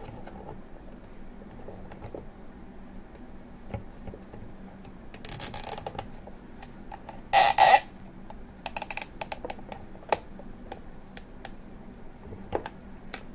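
Nylon zip tie being pulled through its ratchet lock: a rasping run of clicks about five seconds in, two loud sharp rasps a couple of seconds later, then a short rattle and scattered single clicks.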